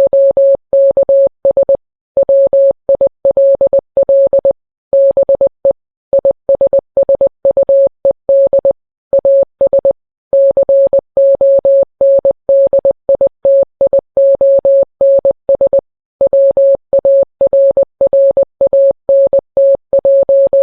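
Morse code sent as a single steady mid-pitched beep, keyed on and off in dots and dashes with short pauses between words, spelling out a NOAA Weather Radio tropical weather outlook message.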